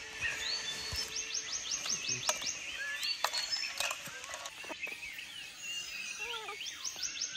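Forest birds singing: twice a fast run of falling high notes, with other scattered chirps, over a few light clicks and scrapes of food being worked in a metal mess tin.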